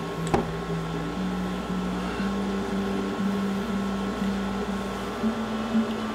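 Electronic music: a synth line of even notes, about two a second, stepping up and down in pitch. One sharp click sounds about a third of a second in.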